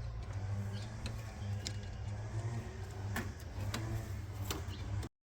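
A steady low hum with a few sharp, light clicks of hand tools working on the engine bay's hose clamp and fittings. The sound cuts off suddenly just before the end.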